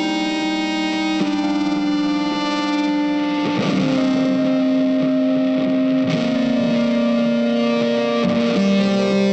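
Background music: slow electric guitar with effects, playing long sustained chords that change every few seconds.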